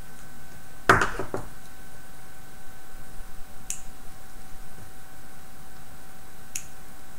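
Rubber track links from a Tamiya track set being handled and pressed together by hand: a quick cluster of clicks about a second in, then two faint single clicks later.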